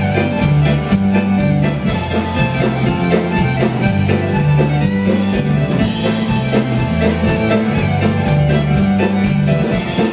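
Live Celtic folk-rock band playing an instrumental passage, with fiddle, guitar, bass and drums keeping a steady driving beat.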